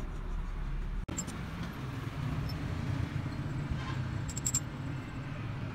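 An engine runs steadily with a low hum, broken by a brief dropout about a second in. A few light metallic clinks come a little past the middle.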